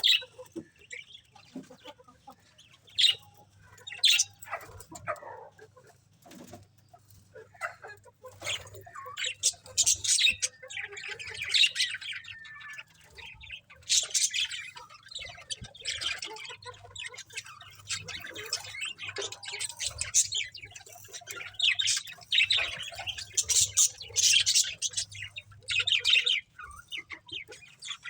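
Budgerigars chirping and chattering in short, high chirps. The chirps are scattered at first and become busy and nearly continuous from about eight seconds in.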